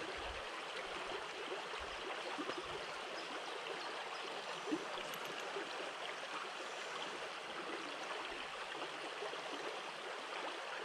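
Small stream flowing steadily, water burbling over stones in a shallow riffle.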